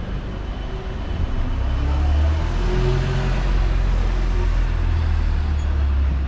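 A heavy vehicle's engine rumbling low and close in street traffic, swelling about a second and a half in and holding steady, over general traffic noise.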